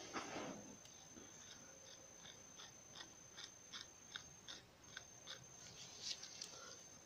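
Sharp knife cutting along an animal's lip as it is turned for taxidermy: a series of small, crisp snicks, about two or three a second.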